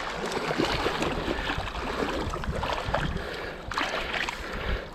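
River water flowing and splashing, with a few brief splashes about four seconds in.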